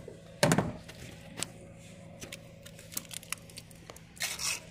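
Thunks and light clicks of metal AC refrigerant lines and fittings being handled in an engine bay: one loud knock about half a second in, scattered small clicks after it, and a short rustling burst near the end.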